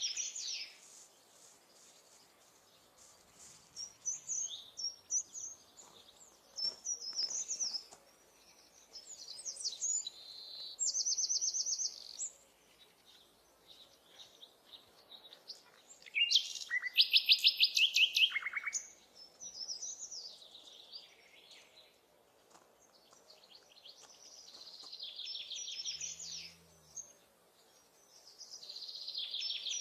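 Small songbirds singing in short, separate phrases and trills, high-pitched, with a loud rapid trill about halfway through.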